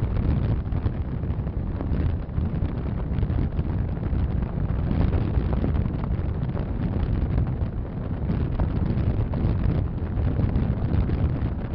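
Strong wind buffeting the microphone in uneven gusts, over a low rumble of a moving vehicle.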